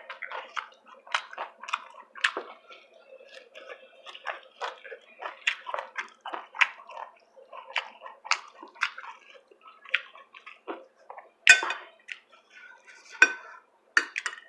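Close-up eating sounds: chewing and wet mouth smacks mixed with light clinks of cutlery against a dish, with two louder clatters of tableware near the end.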